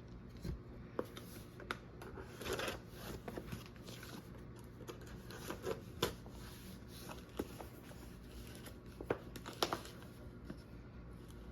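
Cardboard shipping box and its packaging being opened by hand: irregular rustling, scraping and tearing with scattered sharp clicks and taps, one longer rustle a couple of seconds in and a cluster of sharper clicks near the end.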